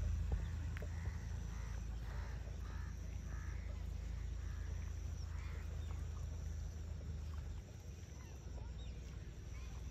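Outdoor ambience: a low steady rumble with faint animal calls, a quick run of them a couple of seconds in and another about halfway. The rumble eases a little near the end.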